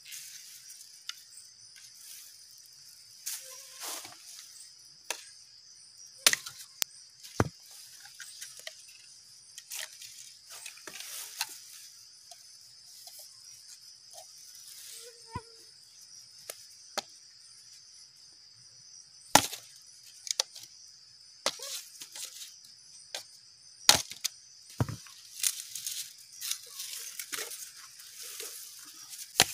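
Steady high-pitched drone of forest insects, with irregular sharp cracks and knocks of wood being worked by hand, the loudest two about two-thirds of the way through.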